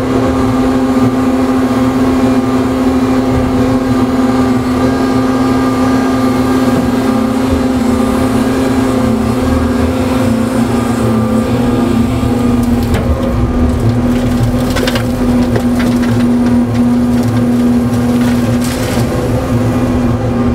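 Gradall G3WD telescoping-boom excavator's engine and hydraulics running steadily under load as it digs and swings a bucket of dirt, with a constant humming tone. A few brief rattles come in the second half.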